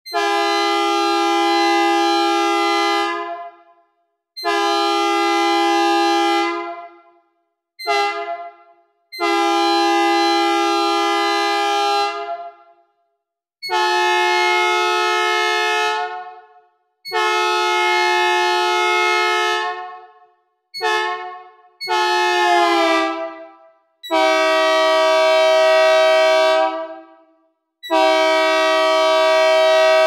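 Synthesized recreation of a Nathan P2 two-chime train horn sounding a minor third, blown in about ten blasts, most of two to three seconds, with two short toots among them. One blast a little past the two-thirds mark sags in pitch as it fades away.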